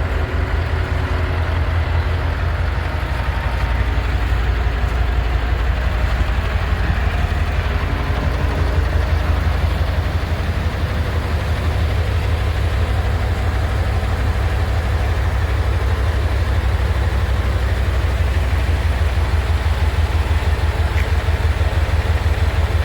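Heavy diesel truck engine idling steadily, a low, even drone.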